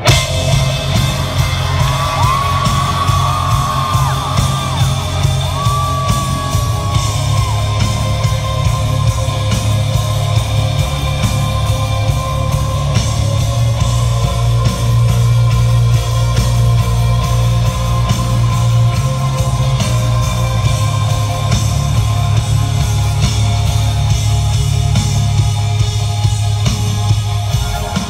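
Loud music in a concert hall, built on a held deep bass drone, with fans screaming and whistling; a couple of long high screams or whistles come a few seconds in.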